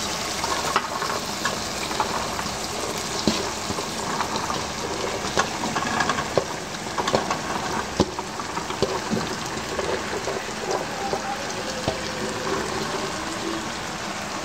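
Masala sizzling as it fries in oil in a pot, a steady hiss with scattered light clicks and knocks.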